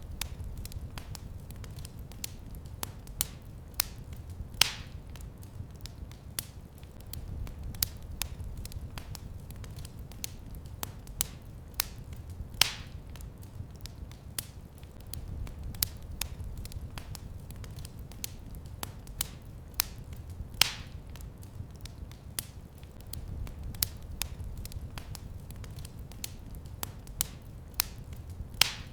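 Wood fire crackling in a fireplace: many small sharp crackles over a low steady rumble, with a louder pop about every eight seconds.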